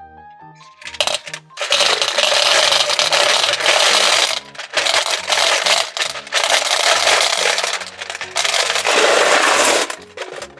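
Gumballs pouring into a toy gumball machine, a dense rattle of many small hard balls in three long rushes, over background music.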